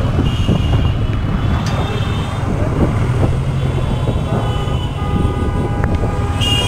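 Busy city street traffic heard from a moving motorcycle, with a steady low engine rumble. A vehicle horn sounds for about two seconds past the middle, and a higher-pitched horn starts near the end.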